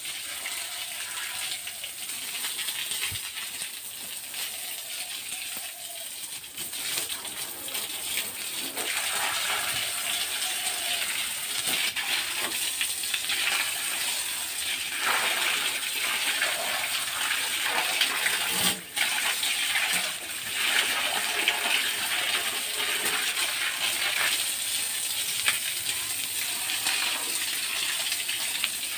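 Water gushing and splashing over a pig pen floor as it is washed down, with occasional sharp clinks.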